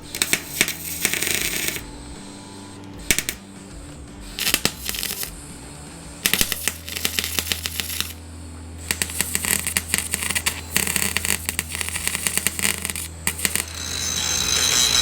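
MIG welder crackling in short bursts with pauses between them, stitch-welding to fill rust holes in a car's steel sill panel. Near the end a steadier, louder power-tool noise starts up.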